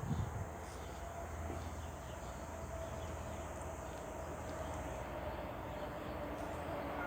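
Cicada singing, a steady buzz, with a couple of low bumps right at the start.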